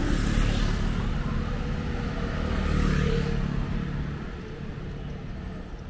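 Street traffic: motor vehicles passing with a low rumble, one swelling past about three seconds in and then fading away.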